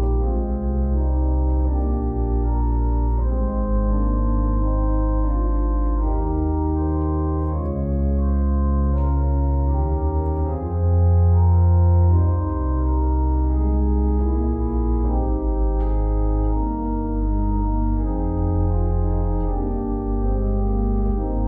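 Church organ playing sustained full chords over deep pedal bass notes, the chords changing every second or so. The bass is loudest about halfway through.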